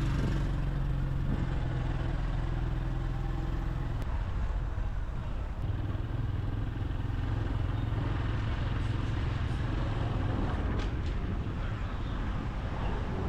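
Motorcycle engine running under a passenger riding pillion, with road and wind noise; the engine note changes about four seconds in.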